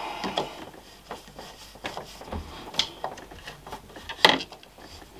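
Light clicks and knocks of hands handling a 3D-printed plastic holder against the printer's side panel, with one sharper knock about four seconds in.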